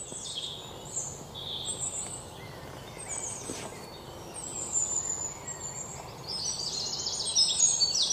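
Wild birds chirping and calling over a steady low outdoor hiss. From about six seconds in, a fast trill of rapidly repeated high notes grows louder and becomes the loudest sound.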